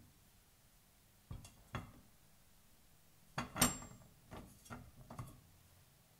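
Whole raw potatoes set one at a time into an empty stainless steel saucepan, giving a scattered series of soft knocks against the pan and each other. The loudest knock comes a little past halfway through.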